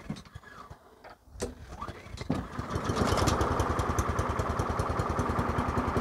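Honda HRC216 mower's single-cylinder Honda GSV160 engine starting: it catches about two seconds in and then runs steadily with an even, rapid beat.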